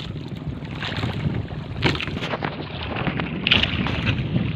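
Wind buffeting the microphone over the sea, with water lapping and slapping irregularly against the hull of a small wooden outrigger boat.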